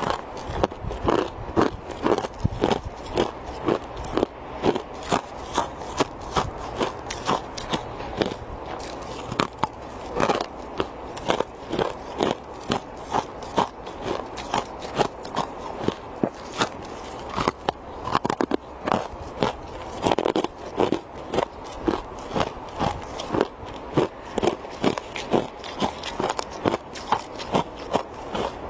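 A person biting and chewing thin ice, close to a clip-on mic: a steady run of crisp, sharp crunches.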